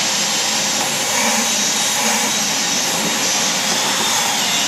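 Vacuum cleaner running steadily: a loud, even rush of air with a faint steady whine under it.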